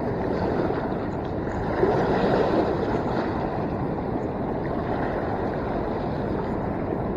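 Steady rush of fast-moving river water, swelling a little about two seconds in.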